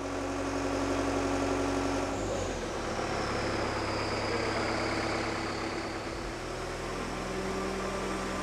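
Aircraft tractor's engine running steadily as it pushes an aircraft fuselage by its nose wheel, its pitch shifting slightly about two seconds in and again around six seconds.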